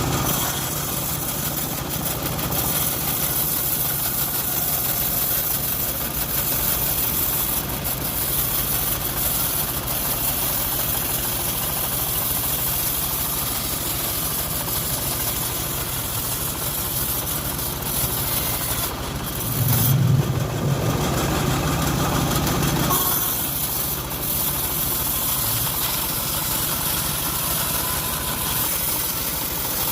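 Engine of a homemade bandsaw mill running steadily, swelling louder for a few seconds about twenty seconds in.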